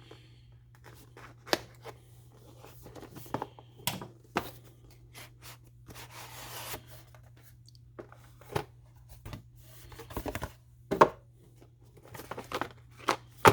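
Product packaging being opened by hand: scattered clicks, rustles and handling knocks, with a stretch of tearing about six seconds in and sharper knocks near the end.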